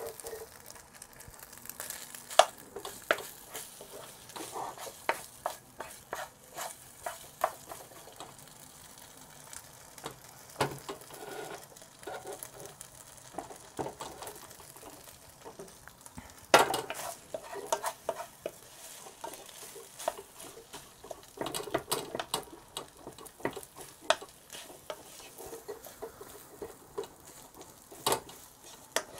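Wooden spatula stir-frying rice in a nonstick frying pan: irregular scraping and tapping against the pan over a faint sizzle, with two sharper knocks, one about two seconds in and one about seventeen seconds in.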